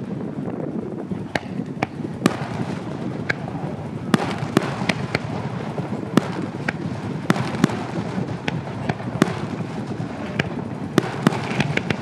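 Aerial fireworks shells bursting: more than a dozen sharp bangs at irregular intervals, some in quick clusters, over steady background noise.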